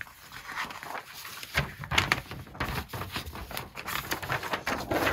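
A large folded paper poster being unfolded by hand: irregular rustling and crinkling of the glossy sheet, with soft taps as it is flattened on the table.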